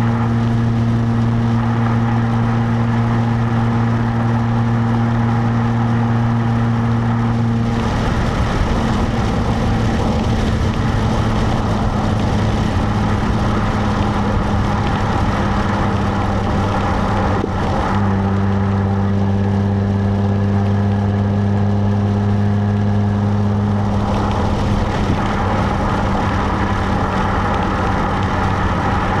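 Stock exhaust of a 2017 Jaguar F-Type, heard close up from the rear, running at steady engine speed while driving, with road and tyre noise under it. The exhaust note holds a steady pitch, turns rougher about eight seconds in, and settles into a steady pitch again at around eighteen seconds, shifting once more near twenty-four seconds.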